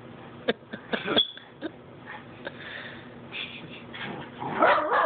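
Two dogs at rough play over a toy: a few short sharp sounds in the first second or so, then loud play-growling near the end as they tussle.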